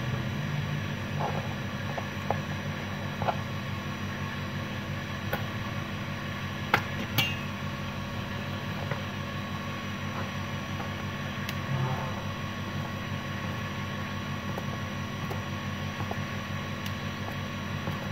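Light taps and clicks of pieces of rice noodle sheet and a knife set down on a plastic cutting board and a plate, a handful of them, the sharpest about seven seconds in, over a steady background hum.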